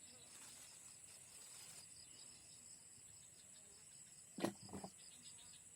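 Faint insects, likely crickets, chirping in a steady pulsing rhythm of about five pulses a second over a continuous high buzz. Two short sharp sounds about four and a half seconds in.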